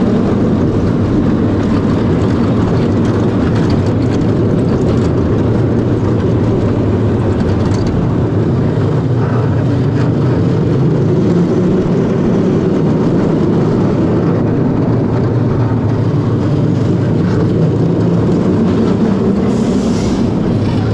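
Family roller coaster heard from the riding car: a steady, loud rumble of the train running along the track. A brief higher hiss comes about a second before the end.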